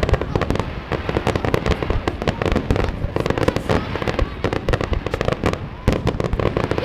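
Fireworks display going off in quick succession: a dense run of bangs and crackling reports, several each second.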